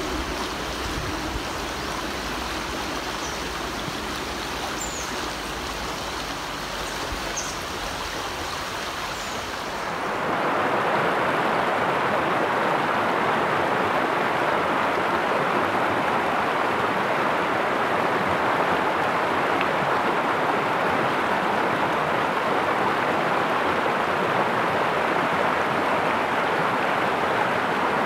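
River water rushing over rocks and shallow rapids in a steady, even flow. For the first ten seconds or so there is a low rumble underneath; then, about ten seconds in, the rush turns suddenly louder and closer, with a higher hiss.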